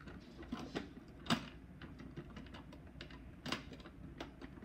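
Faint, irregular small clicks and taps of plastic toys being handled, as dolls and doll clothes are rummaged in a plastic toy wardrobe, with two louder taps about a second in and near three and a half seconds in.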